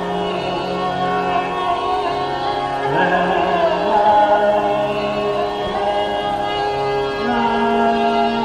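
Hindustani classical vocal in raag Nat Malhar: a male voice holding and gliding between notes over a steady drone.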